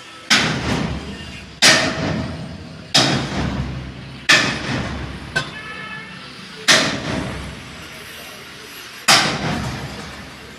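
Hammer blows on the sheet metal of a combine harvester's grain tank: six heavy strikes at uneven spacing, each ringing out and fading over about a second, with a light metallic tick between the fourth and fifth.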